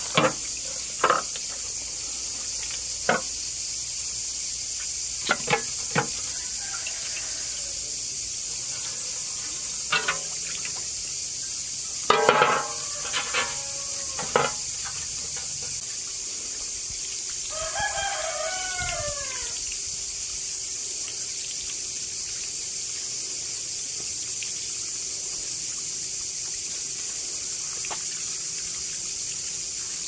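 A rooster crows once about eighteen seconds in, its call falling in pitch at the end. Underneath is a steady high insect chorus. Scattered short, sharp knocks and clucks come in the first half.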